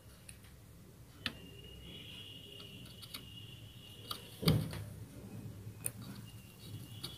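Quiet bench work with scattered light clicks and taps from tools being handled, a faint steady high whine in the middle, and a short low thump about four and a half seconds in, the loudest sound.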